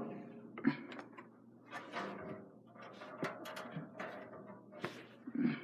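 Scattered clicks and knocks of computer parts being handled and pushed into a PC case, with about half a dozen separate small hits.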